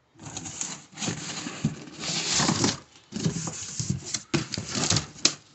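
Close rustling and scraping with scattered sharp knocks: cardboard boxes and crumpled packing paper being handled.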